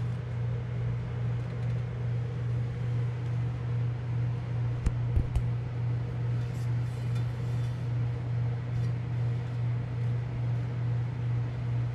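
Steady low mechanical hum with a slow, regular pulse, about twice a second, and a couple of faint knocks about five seconds in.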